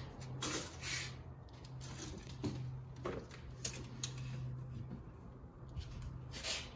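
Light handling sounds of a wooden frame strip and a tape measure being slid and shifted on a workbench: a scattering of soft scrapes and taps over a steady low hum.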